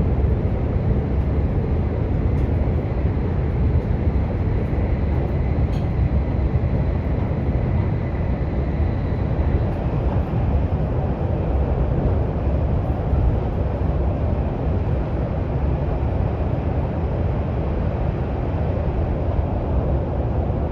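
Daxing Airport Express metro train running at speed, heard inside the carriage: a steady low rumble of wheels and running gear, with a faint high whine for a few seconds near the middle.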